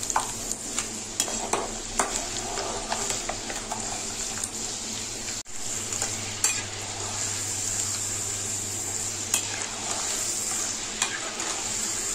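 Peanuts deep-frying in hot oil in a metal kadai: a steady sizzle, with a perforated metal skimmer stirring and clinking against the pan again and again. The sound drops out for an instant about halfway through.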